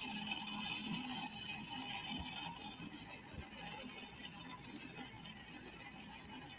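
Faint, steady crackle of a 6010 stick-welding arc on a pipe root pass, fading slightly, with faint music underneath in the first part.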